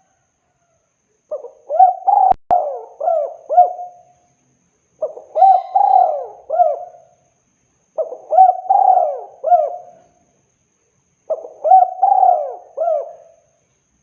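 Spotted dove (tekukur) cooing: four phrases about three seconds apart, each a run of quick rising-and-falling coos. A single sharp click comes during the first phrase.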